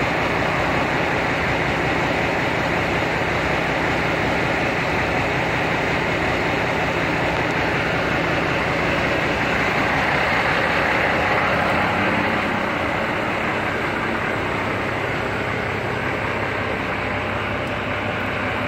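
Steady outdoor urban background noise: a low mechanical hum under an even hiss, easing slightly about twelve seconds in.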